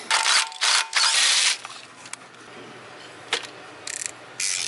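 Tools and hands being worked in an engine bay during a spark plug change: several short bursts of scraping and rustling in the first second and a half, a sharp click a little past three seconds, and two more bursts near the end.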